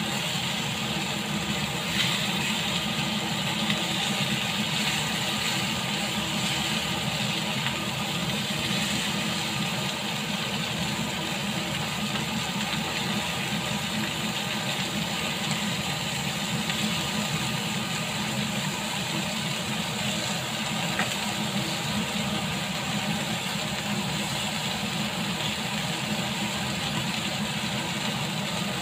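Lamb chops sizzling in a ridged grill pan, with a steady low hum underneath and a couple of light clicks as tongs turn the meat.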